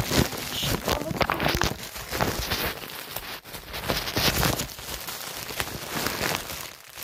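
Irregular rustling and crackling as a phone is handled close over a bedsheet, fabric brushing against the microphone.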